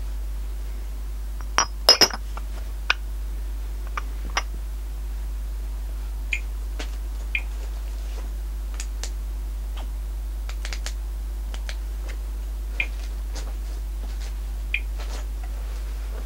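Glass dish clinking a few times as it is lifted and moved, about two seconds in; then sparse, irregular single clicks, of the kind a Thermo Scientific RadEye G-10 gamma survey meter gives as it counts background radiation, over a steady low hum.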